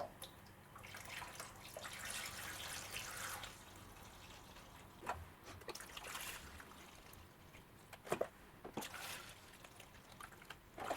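Water trickling as it is poured into a living wall planter's water reservoir, in a few short bouts, with a couple of light knocks.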